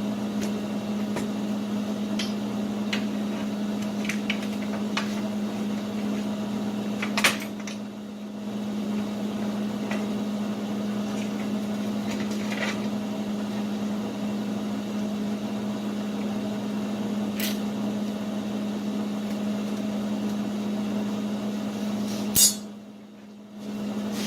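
A running forge giving a steady hum, with scattered light metal clinks and two louder metal clanks, about seven seconds in and near the end.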